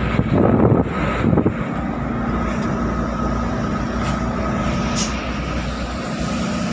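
Cargo truck's diesel engine running steadily under way, heard from inside the cab. In the first second or so, wind buffets loudly at the open side window.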